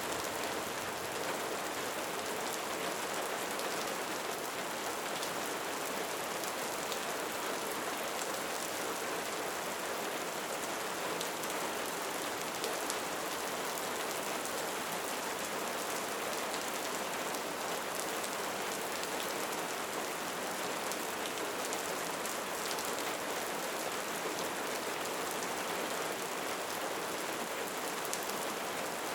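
Steady rain falling, an even unbroken hiss with faint scattered ticks of individual drops.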